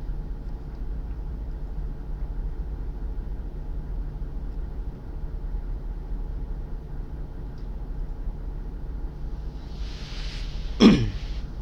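Steady low background hum, then near the end a brief breathy vocal noise from a person, falling in pitch, like clearing the throat.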